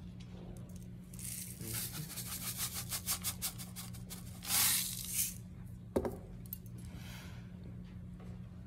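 Salt canister shaken over a watercolour painting: grains rattle in a rapid run of fine clicks, then a short louder gush as salt pours out. A single knock follows a second later as the canister is set down on the table.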